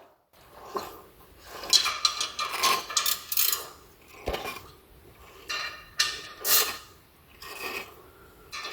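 Ford EcoSport 1.5's manual gearbox, freshly rebuilt and washed with no oil inside, being turned: irregular metallic scraping and rattling in bursts, with a sharp knock about four seconds in. The transmission rebuilder calls this noise normal for a gearbox without oil.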